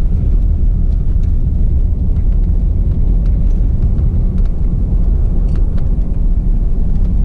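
Steady low rumble of a car driving, the tyre and engine noise heard from inside the cabin.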